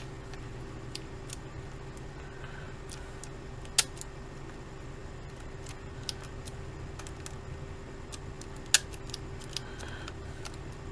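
Sharp mechanical clicks from handling a Sony TC-55 portable cassette recorder, two loud ones about four and nine seconds in and a few fainter ones, over a steady low hum.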